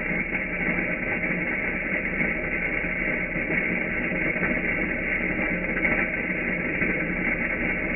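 Coffee grinder grinding beans: a steady, grainy crunching over a constant low hum, with no breaks.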